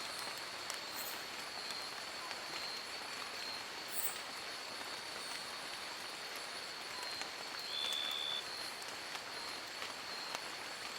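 Steady rain falling in a forest, an even hiss with a thin high tone held throughout. About eight seconds in, a short high-pitched tone sounds for under a second.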